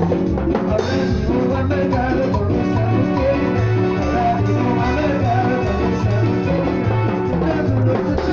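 Live band playing chichita, Ecuadorian cumbia-style dance music, with a steady bass beat and melodic lines.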